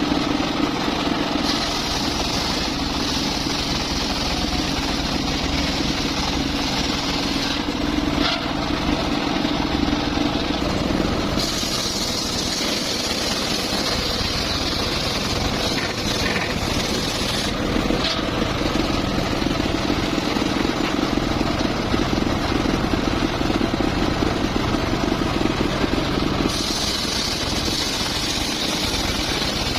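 Circular saw running steadily, its blade cutting into mahogany wood in three long passes, each one adding a hissing, rasping edge over the motor's hum.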